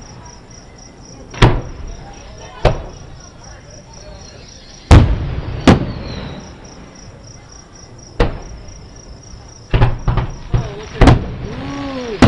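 Aerial fireworks shells bursting about a mile away, each a sharp boom: a handful a second or two apart, then a quicker cluster near the end. A steady chirring of crickets runs underneath.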